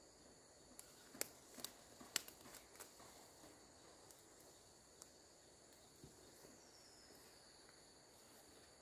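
Steady high-pitched insect drone with a few sharp snaps and rustles about one to three seconds in, as a person pushes through dense ferns.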